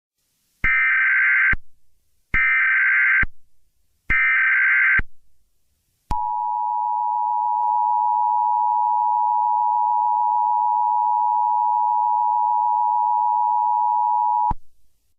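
Emergency Alert System tones: three short bursts of SAME header data about a second apart, then the two-tone EAS Attention Signal, held steady for about eight seconds and cutting off abruptly. The sequence signals the start of an emergency alert announcement.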